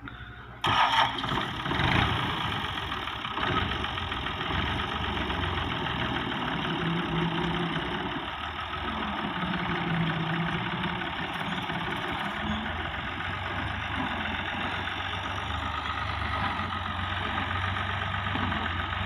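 Hitachi excavator's diesel engine running steadily as the machine works, its note shifting a few times along the way. The sound comes in abruptly just under a second in.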